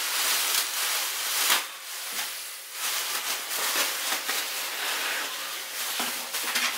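Plastic air-cushion packaging crinkling and rustling as it is pulled out of a cardboard box, with a louder crackle about a second and a half in.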